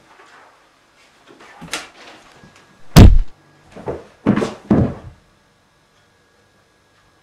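A door slams shut with a loud bang about three seconds in, between lighter knocks before it and a few heavier thumps after it.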